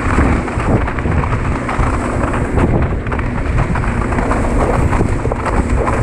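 Wind buffeting the camera microphone over the hiss and splash of water spray from a pair of water skis being towed at speed, a loud, continuous rumble.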